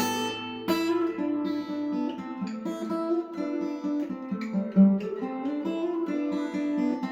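LAG HyVibe acoustic guitar being played: a steady run of picked notes and strummed chords.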